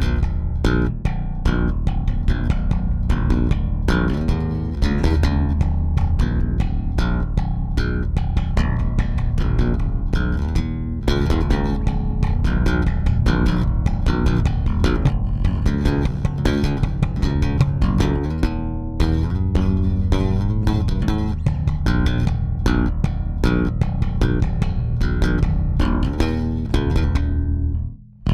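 Warwick Vampyre SN-5 five-string electric bass with MEC active J/JJ pickups played slap-style: a fast run of sharp slapped and popped notes. The playing stops just before the end.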